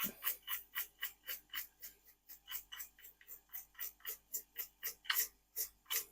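Quick rhythmic scrubbing strokes on a circuit board, about four a second, cleaning off excess solder flux; two strokes near the end are louder.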